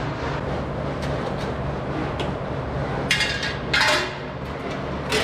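Steady low hum of a robotic milking stall's machinery, with two short, loud bursts of hiss about three and four seconds in and a brief one near the end.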